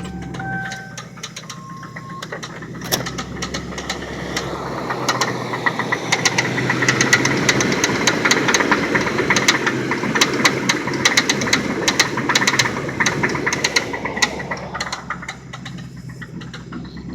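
1995 Lincoln Town Car's 4.6L V8 running with a heavy, rapid knock. The engine grows louder and the knocking sharper from about four seconds in, then eases back near the end. The knock is a failing connecting rod on cylinder 3.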